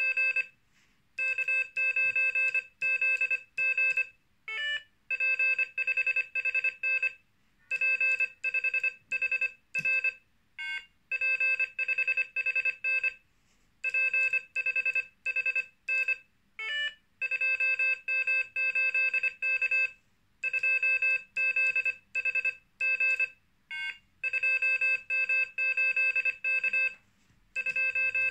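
Morserino-32 Morse code trainer sounding Morse code through its small built-in speaker, a single beeping tone keyed in dots and dashes. It plays four-character call signs in its echo trainer mode, in groups separated by short pauses, with a brief chirp of a different pitch between some groups.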